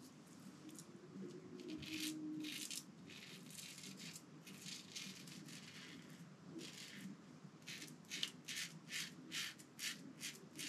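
Merkur 37c slant-bar safety razor scraping through lathered stubble in a run of short strokes, quickening to about two or three a second in the second half.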